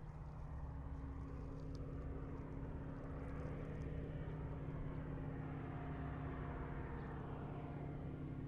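Propeller airplane engine droning steadily, growing a little louder over the first few seconds as it approaches.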